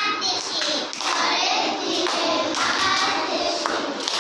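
A young girl's voice chanting a Bengali children's rhyme aloud in a sing-song manner.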